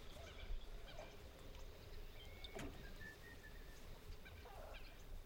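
Faint rural outdoor ambience: scattered bird chirps and short whistled calls over a low steady rumble, with a single sharp knock about two and a half seconds in.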